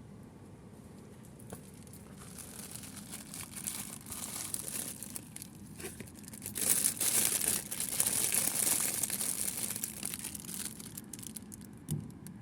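Plastic packaging crinkling and rustling as it is handled and opened, growing louder toward the middle and then dying down, with a soft knock near the end.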